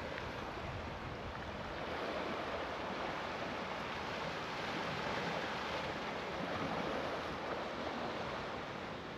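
Steady wash of sea surf with wind, swelling and easing gently.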